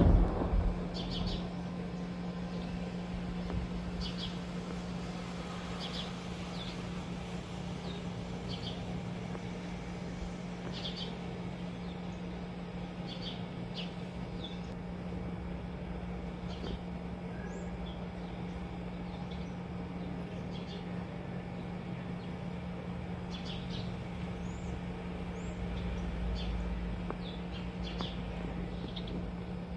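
Small birds giving short, scattered chirps, a few every couple of seconds, over a steady low hum.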